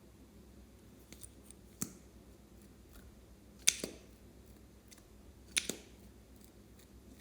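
Scissors snipping: three sharp snips about two seconds apart, the second and third each a quick double click, with a few faint ticks before the first.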